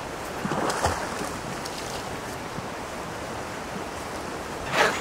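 Steady rushing outdoor noise, with a brief louder rustle about a second in and a louder noisy sound starting just at the end.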